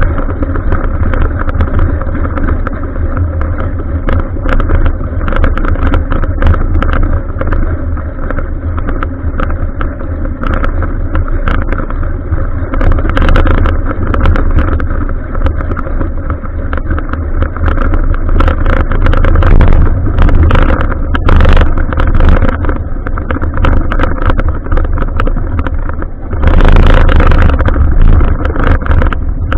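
Continuous wind rush and rumble on an action camera's microphone while riding a bicycle, with frequent small clicks and rattles. A louder rush comes near the end.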